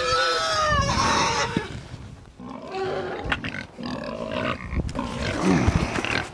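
Pigs squealing and grunting at feeding time, eager for feed. High squeals in the first second or so give way to rougher, noisier grunts.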